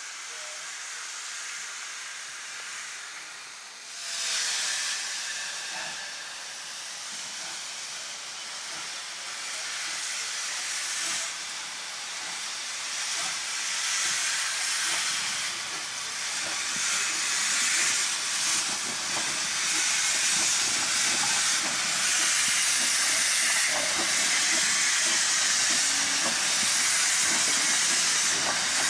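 Steady hiss of steam from NCB No. 49, a six-coupled saddle-tank steam locomotive, with steam blowing out low at its cylinders as it moves slowly. The hiss jumps up suddenly about four seconds in and grows louder toward the end.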